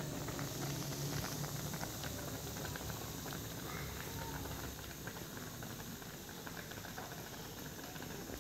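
Pot of mushroom broth at a hard boil: a steady bubbling with many small pops, easing slightly about halfway through.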